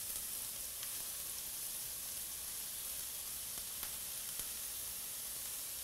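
Diced onions sizzling steadily in a preheated skillet as they sweat: an even, high hiss, with a few faint ticks.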